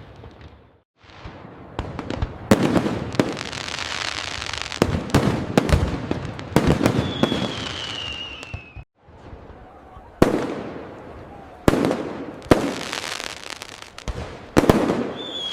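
Fireworks display: a dozen or so sharp bangs of bursting shells in irregular succession, each followed by crackling. Twice, near the middle and near the end, a whistle falls slightly in pitch.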